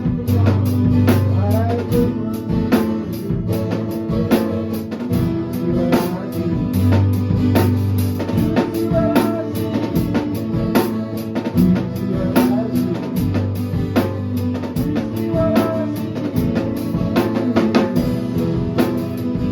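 Live band jamming with a full drum kit playing a steady beat on kick, snare and rimshots, over long held bass notes and electric guitar.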